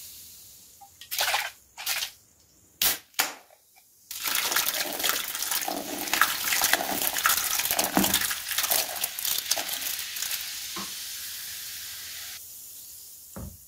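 A few short sharp clicks, then soda poured from a can into a toilet bowl over Mentos: a continuous splashing, crackling fizz for about eight seconds. It stops abruptly near the end, leaving a fainter fizz.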